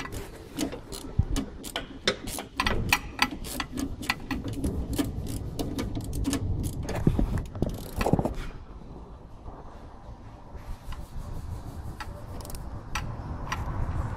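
Ratchet wrench clicking in quick runs while bolts are undone under the car, with a few knocks of tools on metal; the clicking thins out after about eight seconds.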